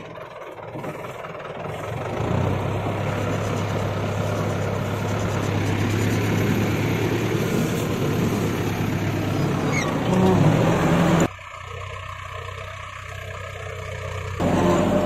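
Tractor engine running steadily, its note shifting higher and louder about ten seconds in. The sound drops suddenly near the end and comes back a few seconds later.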